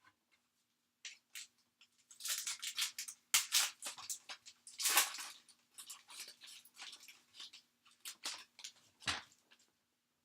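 Trading cards rustling and sliding against each other as they are handled, in a run of dry scraping and crinkling sounds. There is a single duller knock near the end.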